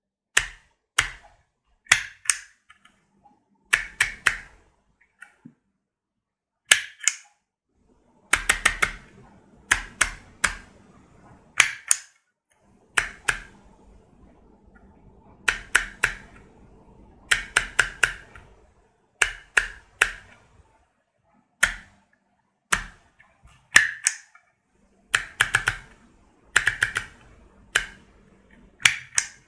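Handheld embossing label maker (letter pliers) being worked: short clusters of sharp clicks and snaps every second or two as letters are dialled and pressed into plastic embossing tape, with faint handling rustle in between.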